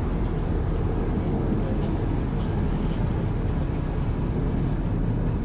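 1920s CPH diesel railmotor running along the line, heard from the driver's cab: a steady low engine and wheel rumble.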